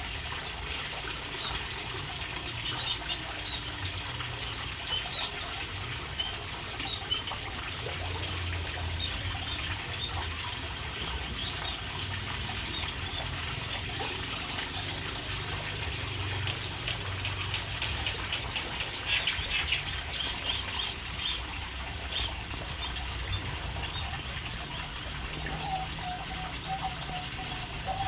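Small aviary birds chirping and tweeting in short, scattered calls, over a steady trickle of running water.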